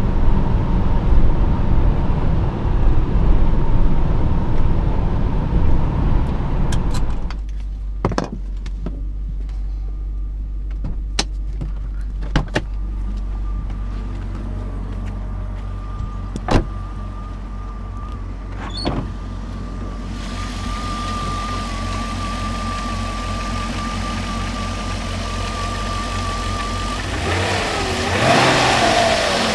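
1994 BMW 530i's M60B30 V8, heard from inside the cabin at highway cruising speed. After a cut the engine idles steadily, with several sharp clicks and knocks. Near the end the V8 is revved by hand at the throttle linkage under the open bonnet, its pitch rising and falling.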